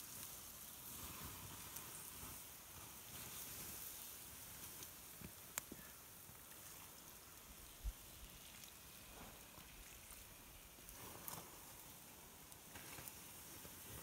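Water poured from a pot onto a campfire's hot coals, hissing and sizzling as it douses the fire. A couple of sharp clicks and a dull knock come about halfway through.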